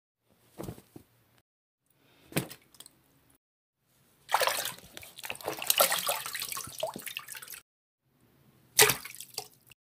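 Water splashing: two brief splashes, then about three seconds of heavy splashing and sloshing from about four seconds in, and a sharp thump near the end.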